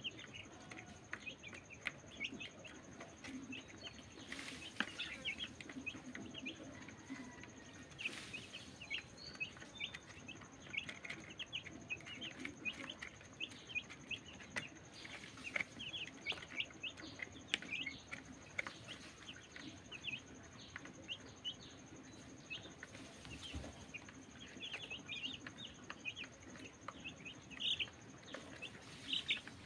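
Young chicks peeping continuously while feeding, a dense stream of short, high cheeps, several a second.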